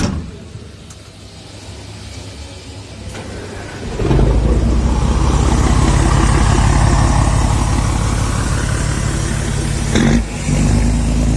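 Scania truck with a loud free-flowing exhaust pulling away under acceleration. Its engine grows louder, jumps to a loud, steady run about four seconds in, dips briefly just after ten seconds, then picks up again.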